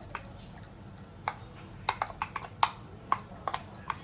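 Kitchen utensils knocking and clinking about ten times at an irregular pace, some taps ringing briefly like metal or glass.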